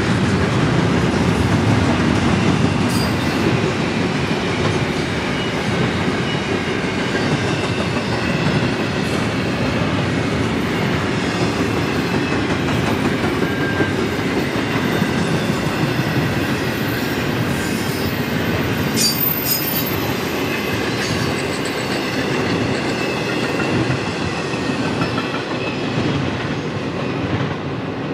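Intermodal freight train's cars rolling past at speed: a steady rumble of steel wheels on rail with clickety-clack over the rail joints and a faint high wheel squeal, plus a few light clanks in the middle.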